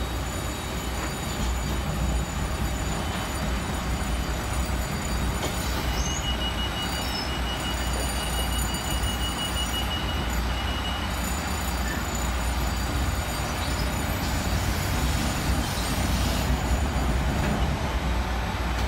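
Jet bridge being driven across the ramp from its control console: a steady rumble of its drive and wheels, with a steady high tone for about five seconds in the middle.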